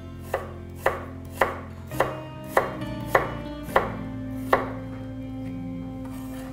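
Kitchen knife slicing an onion against a wooden cutting board: eight sharp chops about two a second, stopping about four and a half seconds in.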